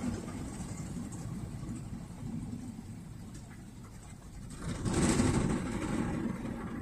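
Honda N-BOX kei car idling, heard from inside the cabin as a low steady rumble. About five seconds in, a vehicle passing on the road outside swells up with tyre hiss and fades.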